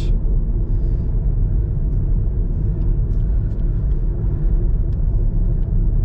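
Steady low rumble of a car driving along the road, heard from inside the cabin: engine and tyre noise.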